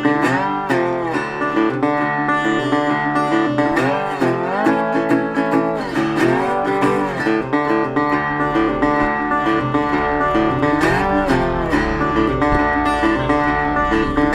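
Country-blues background music: an instrumental guitar break with notes that bend and slide up and down over a steady beat.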